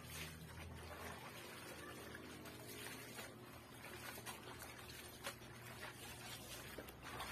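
Laundry being hand-washed in a plastic basin of soapy water: irregular splashing and water trickling back into the basin as the wet cloth is lifted and squeezed.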